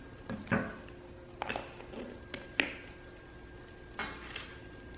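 Clear plastic takeout container being handled and set down on a glass tabletop: several light taps and clicks spread over a few seconds, the sharpest a little past halfway.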